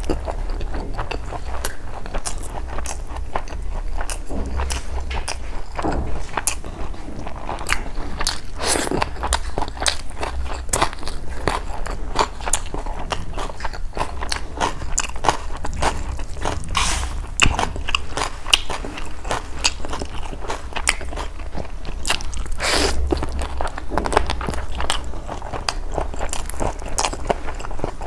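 Close-miked chewing of mouthfuls of rice and curry eaten by hand: frequent wet clicks and smacks, over a steady low hum.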